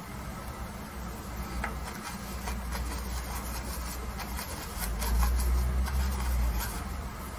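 Paintbrush rubbing and scrubbing oil paint across a canvas: a dry, scratchy rub of strokes over a low steady hum. A low rumble swells for a second or two about five seconds in.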